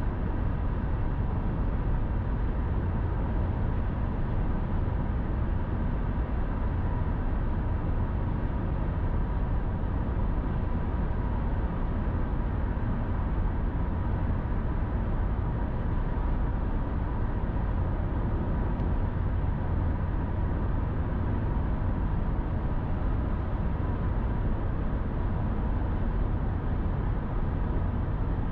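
Car travelling on an interstate highway: steady road and tyre noise, heaviest in the low rumble, with a faint steady whine running through it.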